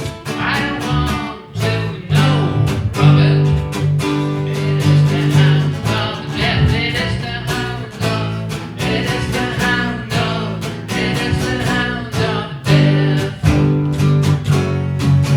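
Live music: an acoustic guitar strummed in a steady rhythm, with a voice singing over it.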